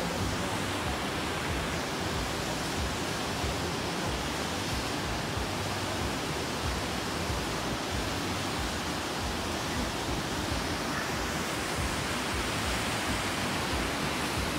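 Steady rushing of a tall waterfall falling into a plunge pool.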